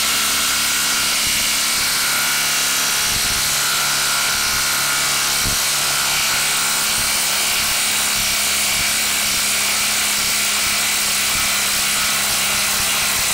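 Bosch brushless impact driver running steadily on its impact mechanism, hammering without a break as it backs a 4-inch hex-head screw out of a wood stump through a socket on its half-inch anvil.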